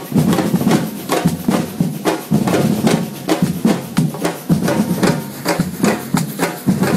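Drum ensemble playing a fast, steady rhythm together, the hits coming several times a second.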